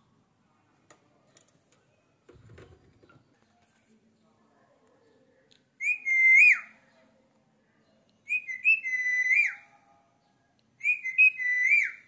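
Indian ringneck parakeet whistling: three short whistled phrases in the second half, each about a second long, wavering in pitch and ending in a quick falling glide.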